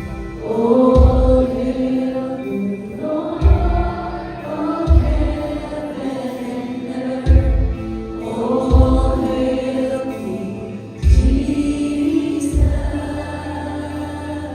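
Live church worship music: a group of voices singing together, holding and sliding between long sung notes over deep bass notes and drum hits that land every second or two.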